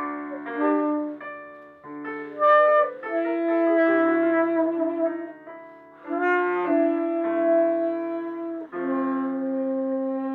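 Free-jazz piano and tenor saxophone duet: the saxophone plays long held notes over piano chords, with short breaks between phrases.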